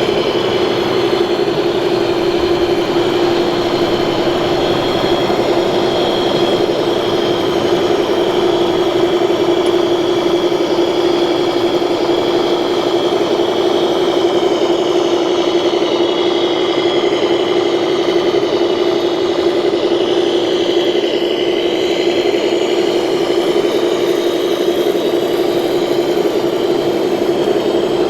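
The motor of a 1/14-scale RC model machine running at a constant speed, a steady whine that holds one pitch without rising or falling.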